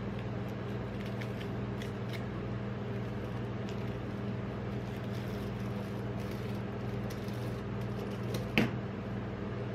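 Cardboard and foil rustling and crinkling as a chocolate bar's box is opened by gloved hands and the foil-wrapped bar slid out, with a sharper crinkle or knock about eight and a half seconds in. A steady low hum runs underneath.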